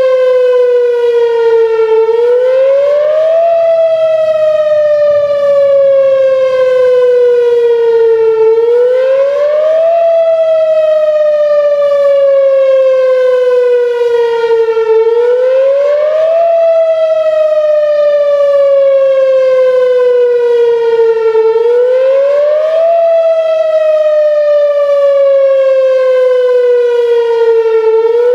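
Whelen Vortex R4 "Finback" electronic outdoor warning siren sounding a wail, its pitch rising quickly and falling slowly, repeating about every six and a half seconds. Its rotator is broken, so the siren does not turn and its loudness stays steady.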